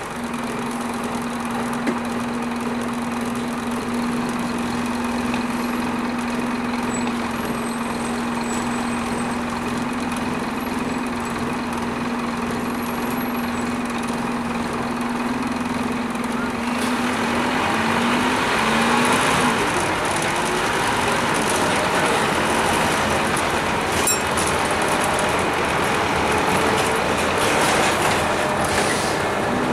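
Scania N230UD double-decker bus heard from inside the passenger saloon, its 9.3-litre five-cylinder diesel running with a steady hum. About seventeen seconds in, the engine note climbs and the engine and road noise grow louder as the bus gets under way.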